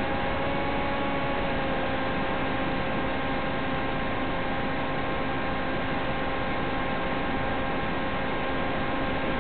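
Steady static hiss with a steady buzzing hum, the audio channel of an analog FPV video link as recorded by the receiver.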